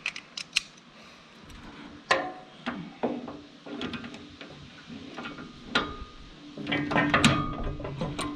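Metal hand tools clinking and knocking against the steel knife mounting of a wood chipper as the new blade bolts are torqued down, in irregular strikes, some with a brief metallic ring. The strikes come thickest near the end.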